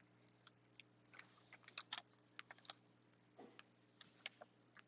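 Faint, irregular clicking and crackling from a new foam squishy toy being squeezed in the hand.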